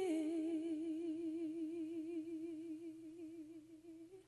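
A woman singing unaccompanied, holding one long note on the word "way" with a steady vibrato after a small step down in pitch. The note fades and dies away near the end.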